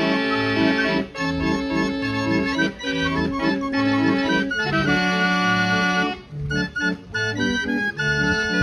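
Hand-cranked barrel organ playing a tune with a regular oom-pah bass. The music breaks off for an instant about a second in and again several times in choppy short gaps past the middle.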